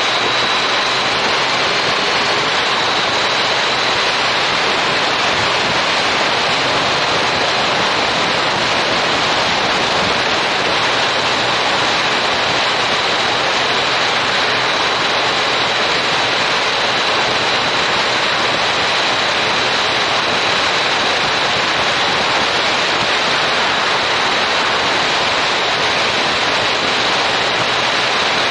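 Steady rush of wind noise on an action camera's microphone on a motorcycle moving at road speed. The hiss stays even and unbroken throughout and masks the engine.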